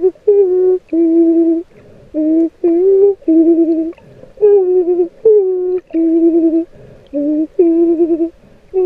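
A person humming a slow tune of short held notes, about ten in a row, each roughly half a second long with small slides in pitch between them.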